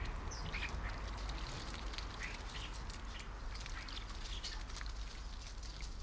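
European starlings calling at a bird bath: a run of short, separate calls over a steady low rumble.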